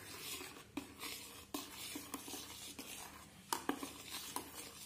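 Steel spoon stirring a thin milk-and-melon mixture in a stainless steel bowl: soft swishing with a few light metal-on-metal clinks as the spoon touches the bowl.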